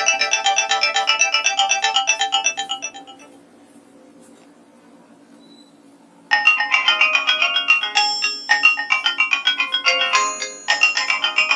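Nokia 2865 polyphonic ringtones: one fast, busy melody fades out about three seconds in, and after a short pause with only a faint low hum, another ringtone starts suddenly a little after six seconds.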